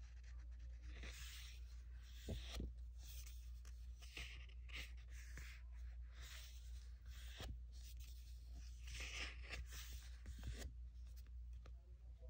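Sticker sheets in a planner sticker book being handled and turned: short paper swishes and rustles with a few soft taps, over a steady low hum.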